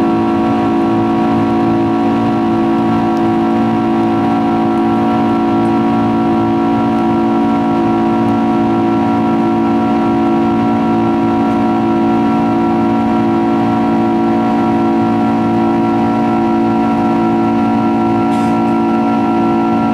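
Rolls-Royce RB211-524H turbofan engines of a Boeing 767-300ER heard from inside the cabin at climb power just after take-off: a steady drone of several held tones over rushing airflow.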